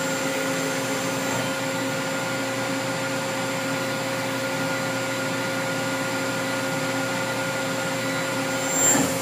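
1995 Cincinnati Milacron Avenger 250MT CNC lathe running with its spindle and 3-jaw hydraulic chuck turning at about 500 RPM: a steady, nice and quiet machine hum with several held tones. There is a brief louder swell near the end.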